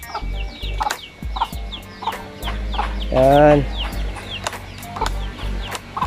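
Chicks peeping: a steady run of short, high, falling chirps, about three a second, over a low steady hum.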